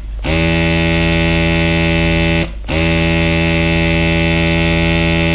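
Aerocolor electric airbrush pen's small air pump buzzing steadily as it sprays colour through the stencil. It cuts out briefly twice, once right at the start and again about two and a half seconds in, as the spray is released and resumed. It is a loud, even buzz, one she calls very noisy.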